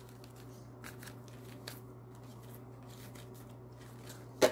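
Oracle cards being handled: faint scattered ticks and rustles, with one sharper card snap near the end, over a steady low hum.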